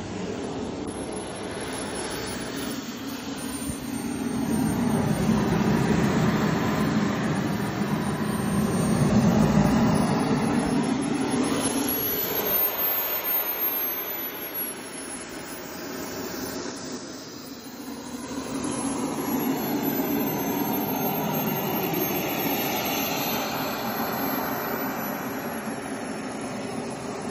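Turbine engine of a 1:5-scale BVM F-16 model jet running as the jet rolls along the runway. A high turbine whine rises and falls with the throttle over a steady rushing exhaust. It is loudest in the first half, dips briefly past the middle, then comes up again.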